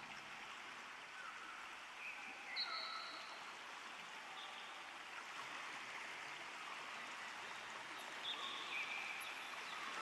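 Kibune River flowing: a steady, soft rush of water, with a few faint short high notes scattered through it.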